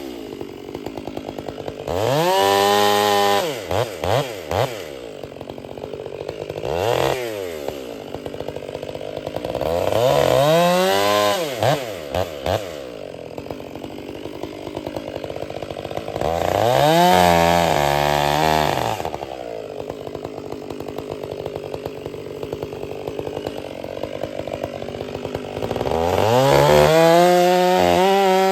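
Two-stroke chainsaw revved to full throttle four times, each burst lasting two to three seconds, with a few short throttle blips and the engine idling in between.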